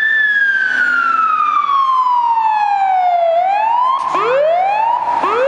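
Fire truck siren wailing, its pitch sliding slowly down for about three seconds, then switching to quicker rising sweeps, with a low engine hum beneath.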